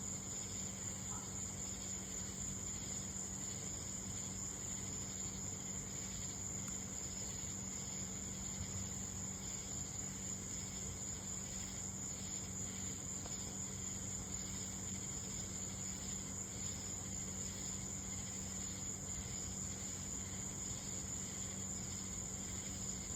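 Night insect chorus, a steady high-pitched trill that goes on without a break, over a low steady hum. No thunder.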